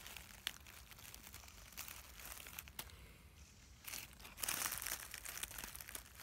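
Rustling and crackling of dry forest-floor litter being disturbed, with scattered small snaps, then a louder, denser rustle from about four seconds in.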